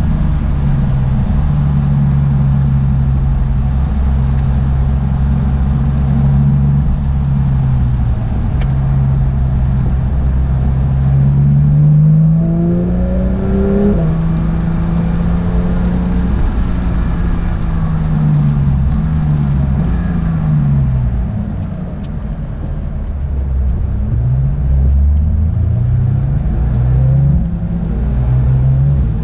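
Porsche 911 GT3 (992) 4.0-litre flat-six engine running under load on track, with the PDK shifting through the gears. The pitch rises about twelve seconds in, drops in several steps a few seconds later, then climbs again near the end.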